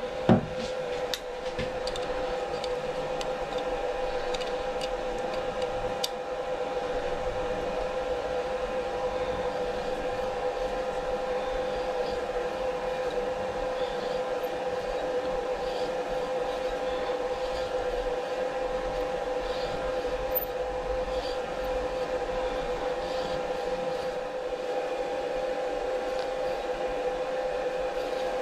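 A workshop machine running with a steady, even hum while a tap is turned by hand in a clamped casting, with a handful of light metallic clicks in the first six seconds or so.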